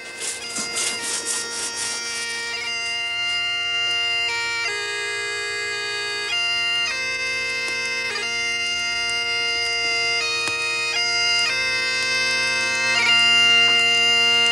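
Bagpipe music: a tune played over a steady, unchanging drone.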